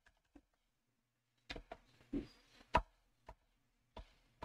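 Faint computer keyboard keystrokes: a couple of clicks, a pause of about a second, then a run of irregular key presses.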